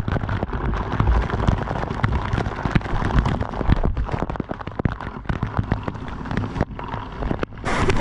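Waterfall water pouring and splashing directly onto the camera: a dense, steady rush with a heavy low rumble and many sharp spatters as the water hits the microphone.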